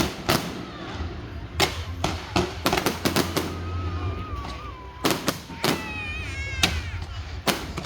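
Fireworks bursting in an irregular series of sharp bangs, with a high, wavering cry from someone in the crowd in the middle.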